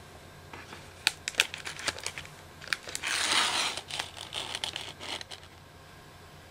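A clear plastic bag holding a plastic model kit's sprues, crinkling and rustling as it is handled and lifted out of a cardboard box. Sharp clicks and crackles come about one to two seconds in, with a denser rustle about three seconds in.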